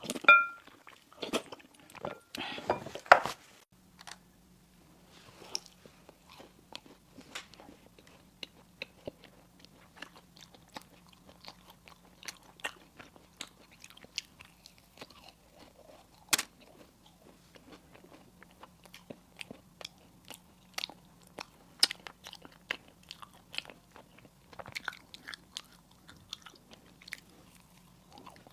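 Close-miked eating of sweet pastries: loud crunchy bites and a few sharp clicks in the first few seconds, then steady, softer chewing with small wet clicks.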